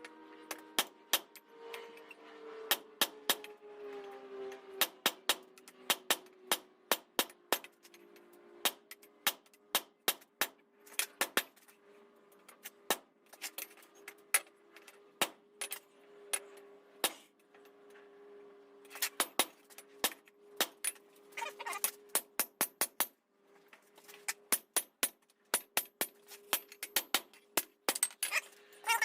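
Hammer blows on hot steel at the anvil, forging a knife preform: sharp ringing metal strikes at an uneven pace, with faster runs of blows about two-thirds of the way through and near the end, over a steady hum.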